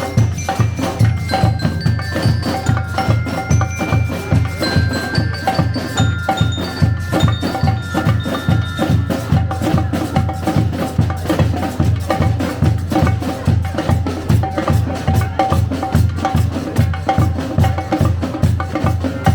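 Live street-band music: a steady, fast drumbeat with a high, bell-like tune stepping over it in the first half.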